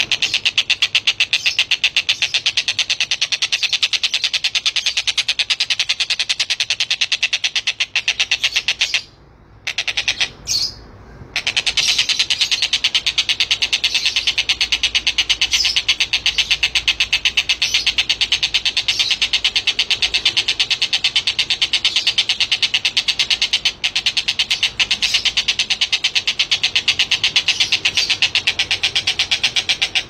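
Javan kingfisher (tengkek buto) giving a long, very rapid rattling chatter of evenly repeated notes, with two short breaks near the middle.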